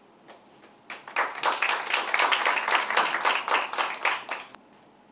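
Audience clapping, a dense round of applause that starts about a second in and dies away near the end.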